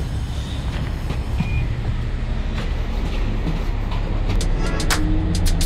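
City bus engine running with a steady low rumble while the bus stands at the stop with its door open, with a quick run of sharp clicks in the last second or so.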